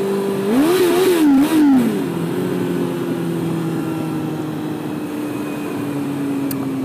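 Motorcycle engine rev-bombed while riding past a pedestrian: about half a second in, the revs jump up and down in three quick blips. The engine then settles back to a steady cruise, its pitch slowly falling.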